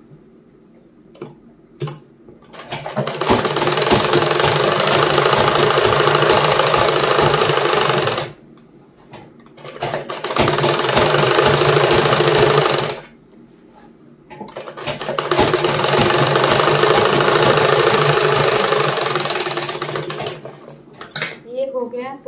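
Old black sewing machine stitching a seam in a nighty's fabric, running in three spells of several seconds each with short stops between them and a few clicks in the pauses.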